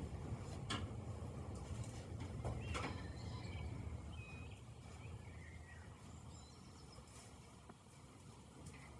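Small birds chirping faintly in short calls through the middle, over a low outdoor rumble, with a few sharp clicks in the first three seconds.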